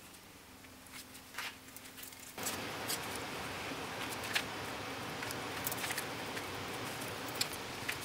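Light clicks and taps of small plastic mixing cups and a needle-tipped squeeze applicator bottle being handled, over a steady hiss that gets louder about two and a half seconds in.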